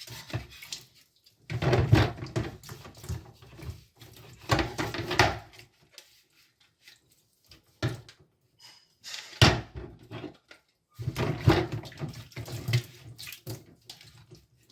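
Water from a tap running in irregular bursts as a washing machine's plastic detergent dispenser tray is rinsed with warm water and soap, with quiet gaps between.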